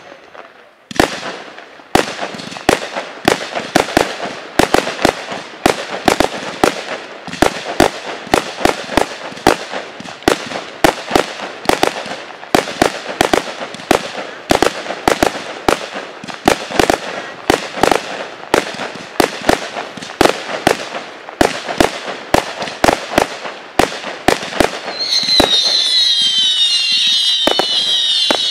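A 200-shot single ignition barrage firework cake firing a rapid string of sharp shots, about two or three a second. About 25 seconds in the shots give way to a dense whistling hiss.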